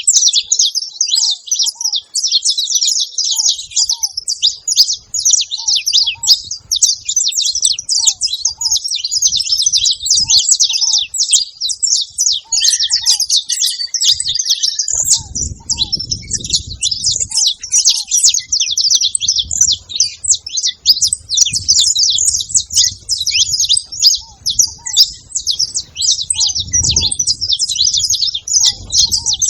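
A flock of saffron finches chattering and chirping continuously, many high overlapping calls at once, with a lower short note repeating now and then. A brief low rumble comes about halfway through.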